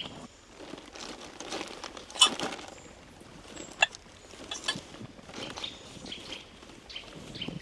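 Rustling and irregular clicks of things being handled and packed into a bag, the sharpest click about two seconds in, with a few faint bird chirps.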